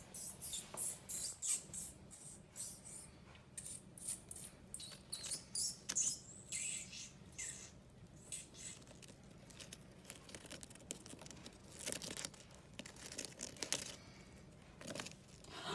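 A small mouse scurrying and climbing over dry leaves, moss and the terrarium wall: short, irregular scratching and rustling of its claws, with louder clusters every second or so.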